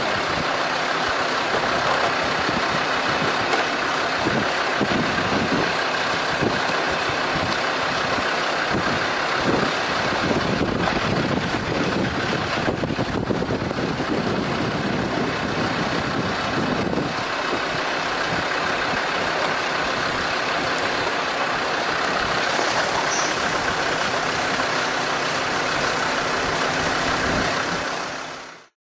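Off-road vehicle's engine running as it drives slowly over a wooden plank bridge, the planks knocking and rattling under the tyres through the first half; the sound fades out near the end.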